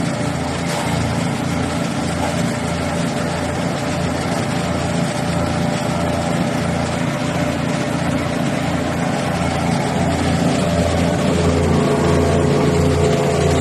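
Wood chipper's 13HP gasoline engine running steadily with a regular low throb, getting a little louder near the end.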